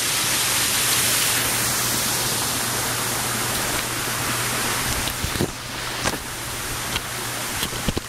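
Small waterfall spilling over rocks into a stone pool, a steady rushing splash of water. It eases slightly about five seconds in, when a few short knocks come through.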